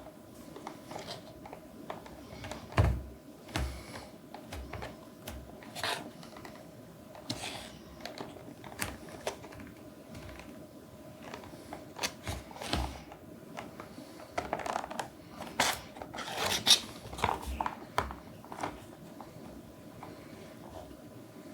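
Hands handling a diecast model car's retail packaging: irregular clicks, taps and crinkles of cardboard and plastic, busiest in the second half, over a faint steady hum.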